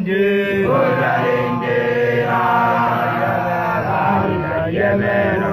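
Group of male voices, Basotho initiates (makoloane), chanting together in a slow initiation chant, holding long sung notes that shift every second or so.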